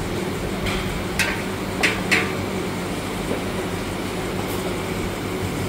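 Steady low rumble of a gas wok burner, with three sharp metallic clinks between about one and two seconds in: a metal ladle knocking against metal cookware.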